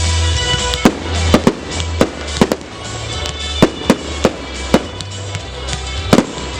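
Fireworks going off in about a dozen sharp, irregularly spaced bangs and cracks, over music with a heavy low bass.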